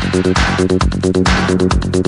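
Hi-NRG dance megamix: a steady kick drum on every beat at about 150 beats a minute, under short, rapidly repeated synth notes.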